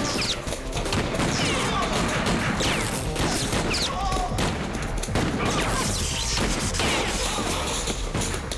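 Sustained rapid gunfire in a film shootout, shots and bullet impacts packed densely together without a break.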